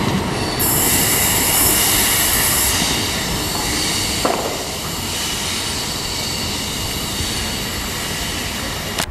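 Trenitalia E.464 electric locomotive and its regional coaches running over the tracks, with the wheels squealing in several steady high tones. A loud hiss comes in about half a second in and eases after about three seconds, and a single short clack sounds about four seconds in.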